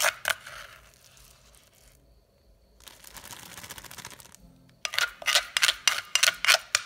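Plastic packaging being handled: a couple of sharp clicks at the start, a soft rustle in the middle, then a rapid run of clicks and crinkles over the last two seconds.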